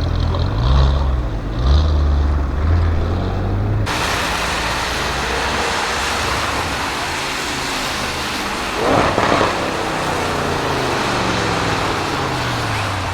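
Audi RS6 Avant C7's twin-turbo 4.0 V8 through a Milltek exhaust: two short revs, then a steady rush of noise over the engine, a short loud burst about nine seconds in, and the engine note falling slowly after it.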